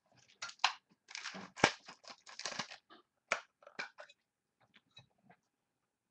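Crinkling and scraping of trading-card supplies being handled, a quick run of short crackles for about three seconds, then a few scattered clicks.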